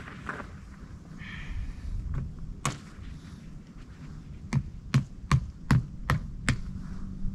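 A run of sharp knocks on a hard surface, about six in two seconds near the end, with a single knock before them, over a low steady rumble. A brief high tone sounds about a second in.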